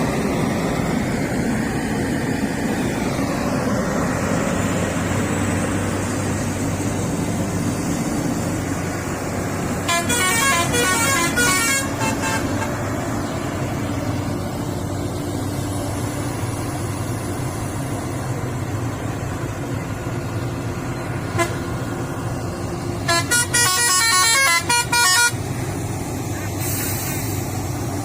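Heavy diesel machinery running steadily, with a vehicle horn sounding twice in quick pulsing toots, once about ten seconds in and again near the end.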